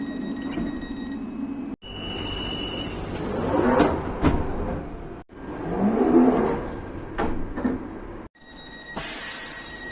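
Several short clips of UK train passenger doors closing, spliced back to back with abrupt cuts: a steady electronic warning tone about two seconds in, then sliding doors shutting with sharp knocks, twice in one clip and twice in the next, over the hum and noise of the train.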